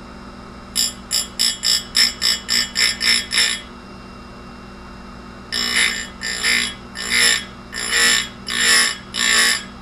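Grinding wheel of a Tecomec Jolly Evo chain grinder touching a chainsaw chain's cutter teeth in repeated high-pitched rasps, first about nine quick short touches, then, after a pause, about seven longer strokes, over a steady hum.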